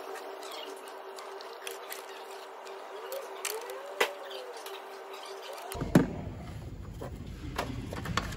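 Scattered sharp clicks and knocks of tools and the plastic timing belt cover being unbolted and lifted off a Ford Mondeo 2.0 TDCI diesel engine, over a steady hum. About six seconds in, the background changes abruptly to a deeper rumble, with a loud knock.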